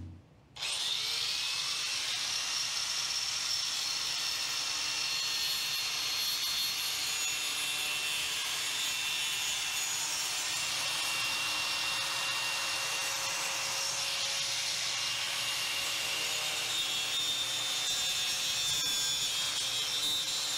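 Electric angle grinder with a disc grinding down a fiberglass hatch-seal rim, running steadily from about half a second in.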